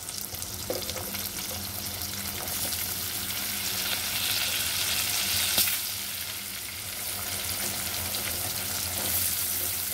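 Thinly sliced onions sizzling in hot butter and oil in a kadai, a steady frying hiss. A single sharp knock about five and a half seconds in.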